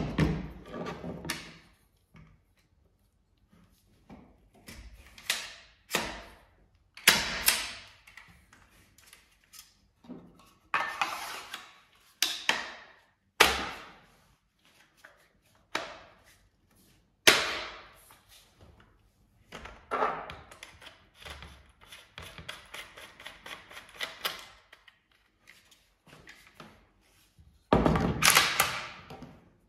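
Handling and assembly noise from an MP155 12-gauge semi-automatic shotgun: separate metal and polymer clicks, knocks and short scraping slides as its parts are fitted together and the gun is set down on a wooden table. A few sharp knocks stand out, with quiet gaps between.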